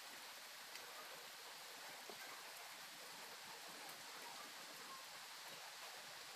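Light rain falling: a faint, steady hiss with a few soft ticks of drops.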